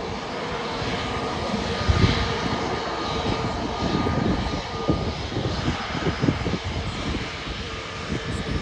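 Airbus A320-251N's CFM LEAP-1A jet engines running at taxi idle as the airliner taxis by. A steady rush with a constant whine sits over an uneven low rumble.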